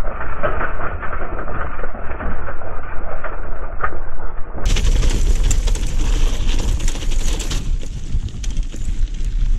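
Mountain bike rattling and its tyres crunching over a rocky gravel descent, with wind buffeting the microphone. For the first four and a half seconds the playback is slowed down, so the rattle sounds muffled and deep, then it continues at normal speed.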